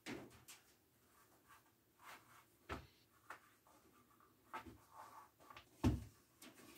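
Leather lace being drawn through slits in a piece of leather: faint, scattered scratchy rubs and soft taps. A louder knock comes about six seconds in, as a wooden stirrup is handled on the bench.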